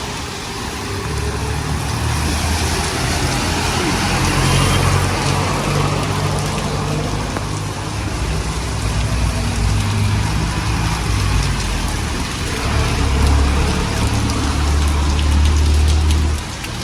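Steady hiss of heavy rain with the low rumble of road traffic on a wet street; the rumble cuts off sharply near the end, leaving the rain.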